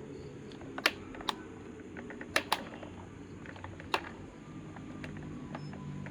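Irregular sharp clicks and taps of a tool working at a stuck part of an electric fan's motor, about five loud ones among fainter ticks. The part is stiff and will not come loose.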